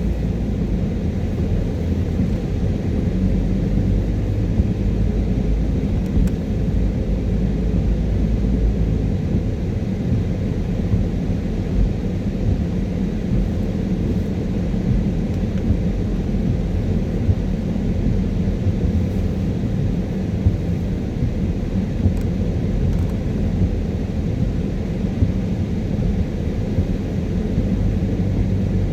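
Steady low rumble of a car's tyres and engine heard from inside the cabin while driving.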